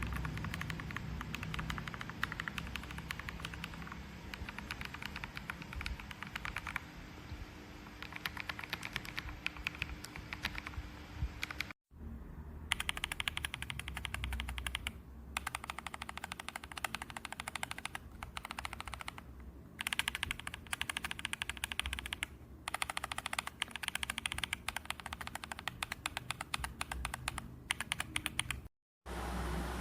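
Fast typing on a mechanical keyboard fitted with MMD Princess Holy Panda v2 tactile switches: dense runs of key clacks broken by short pauses. The sound cuts out briefly about twelve seconds in and again near the end.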